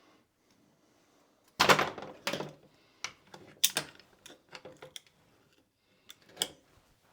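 Irregular sharp metal clicks and knocks from the parts of an NP203 transfer-case shifter being worked by hand and with tools, a quick cluster about a second and a half in and scattered single clicks after.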